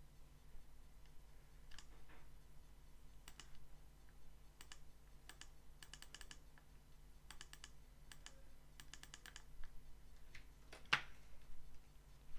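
Faint clicks and keystrokes from a computer mouse and keyboard, scattered and sometimes in quick runs of three or four, with one louder click near the end, over a faint steady low hum.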